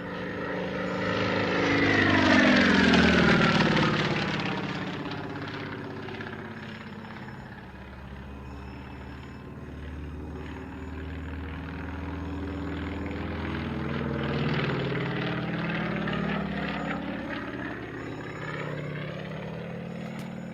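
Propeller aircraft flying past, loudest about three seconds in, its engine note dropping in pitch as it goes by. It drones on and grows louder again about two-thirds of the way through as it comes back around.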